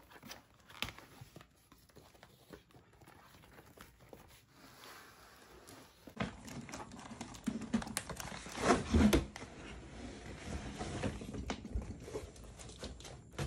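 Cardboard shipping box being opened by hand: flaps scraping and rubbing, with crinkling and light taps. Sparse and faint at first, it gets busier from about six seconds in, loudest around nine seconds in.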